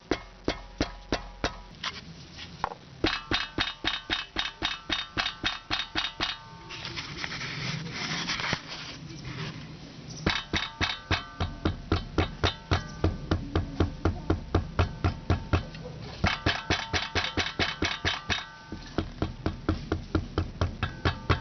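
Background music with a steady, fast beat and repeating chords, with a short break about a third of the way in.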